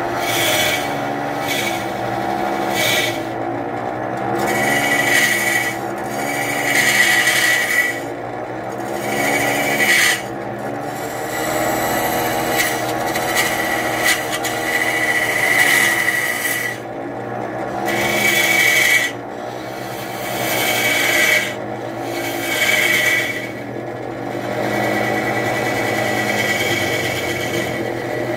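Wood lathe spinning a large wooden mortar blank while a hand-held turning chisel cuts into it. Under the lathe's steady hum, the scraping hiss of the cut swells and fades with each pass of the tool, a second or two apart.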